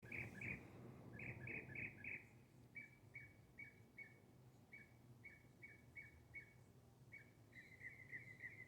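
A bird chirping: a long series of short, repeated chirps at about two to three a second, speeding into a quicker run near the end. A faint low background rumble sits underneath.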